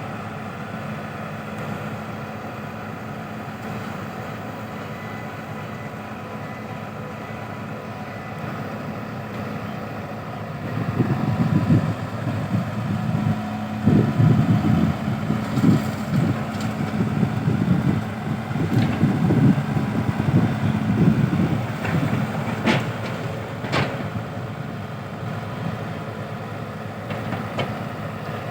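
A vehicle engine running steadily with a low hum. Through the middle stretch it rises into a louder, uneven low rumble, then settles back, with two sharp clicks near the end.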